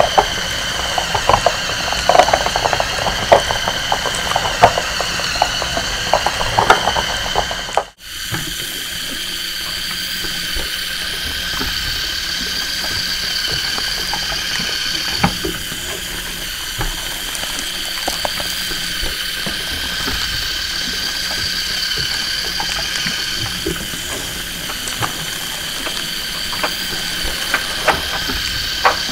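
Lego Technic walker robots' electric motors and plastic gear trains whining steadily, with many sharp plastic clicks from the gears and leg linkages. The sound drops out for a moment about eight seconds in, then carries on with fewer clicks.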